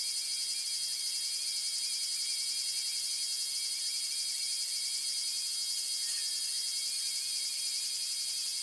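A steady, shrill high-pitched whine of several tones held together, with a fainter wavering tone beneath it.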